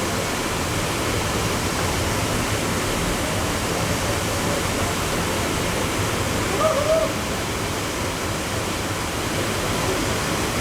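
Steady rush of the Traunfall, a wide, low waterfall on the Traun river channelled between concrete walls. A brief high call is heard about six and a half seconds in.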